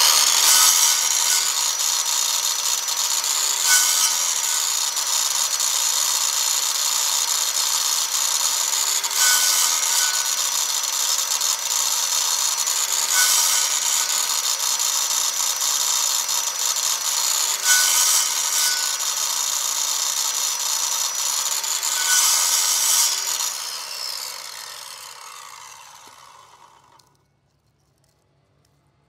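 Craftsman circular saw mounted as a chop saw, its motor running steadily while the toothed blade cuts a stick of wood, the cutting swelling louder about every four to five seconds. About 23 seconds in the trigger is let go and the blade spins down, stopping a few seconds later. The owner blames a gearbox that he means to grease.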